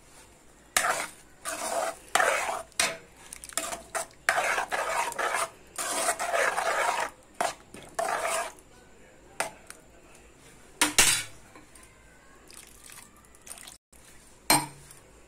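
Steel spoon stirring and scraping thick tomato and yellow-cucumber curry around a pan in a quick run of strokes, then two sharp metal knocks a few seconds apart.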